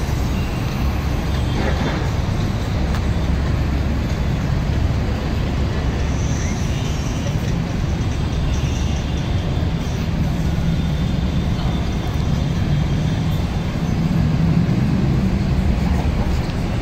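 Steady city traffic noise: a continuous rumble of passing road vehicles, swelling slightly near the end.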